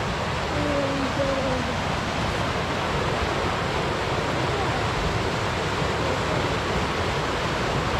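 Small creek rushing over rocks in whitewater: a steady, loud rush of water.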